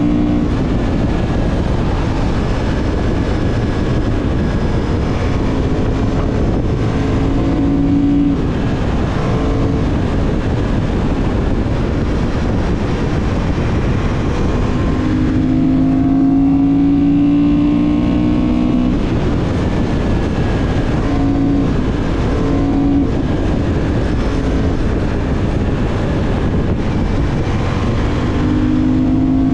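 2024 Honda CB750 Hornet's parallel-twin engine running at road speed, picking up in pitch a few times as the throttle is opened, over steady wind and road noise on the helmet microphone.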